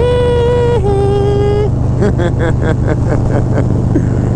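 Harley-Davidson V-twin motorcycles cruising steadily at highway speed. Near the start the loudest thing is a two-note tone, a higher note held about a second and then a lower one, followed by short snatches of voices.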